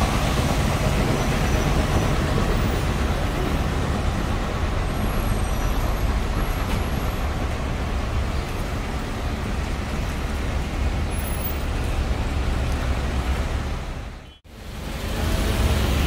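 City street traffic on a wet road: bus and car engines running under a steady wash of tyre and road noise. The sound cuts out for a split second near the end and picks straight up again.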